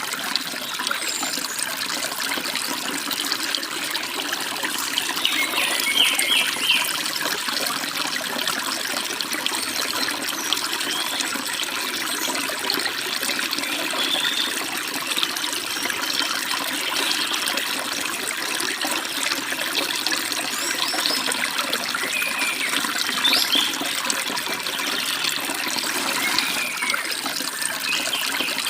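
A stream babbling steadily, with short bird chirps now and then above the water.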